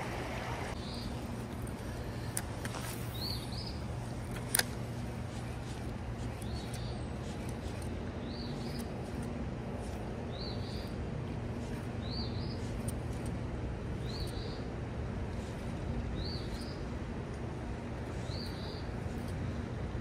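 Creek water running steadily under a low, steady hum, while a bird repeats a short high call about every two seconds. There is a single sharp click about four and a half seconds in.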